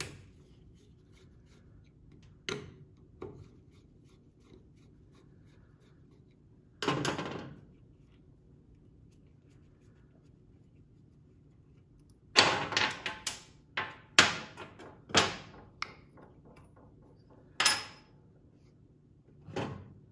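Small carburetor parts and a screwdriver being handled on a metal workbench as the carburetor's top cover is taken off: scattered knocks and clicks, bunched in the second half, over a faint steady low hum.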